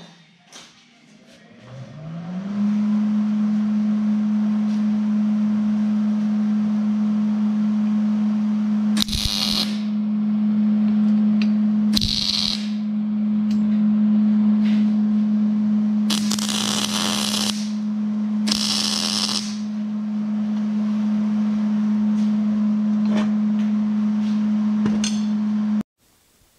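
Steel tube frame being tack-welded: four short crackling bursts of welding, each about a second long, over a steady machine hum that winds up in pitch about two seconds in and cuts off abruptly near the end.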